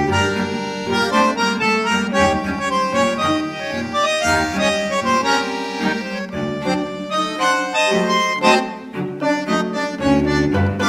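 Instrumental background music, a lively melody over a bass line.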